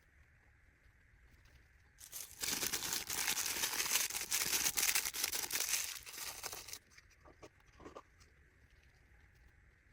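Wrapping material being crinkled and handled for about four and a half seconds, a dense crackle that stops suddenly, followed by a few soft taps.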